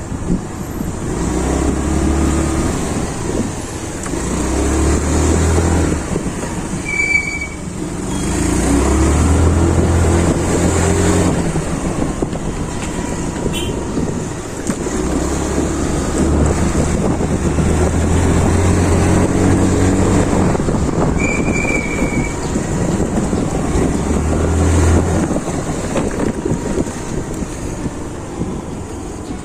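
Yamaha Ray ZR scooter's single-cylinder engine and exhaust on the move, the engine note rising and easing every few seconds as the throttle opens and closes, with wind buffeting the microphone. Two brief high beeps sound, about a quarter of the way in and again about two thirds of the way in.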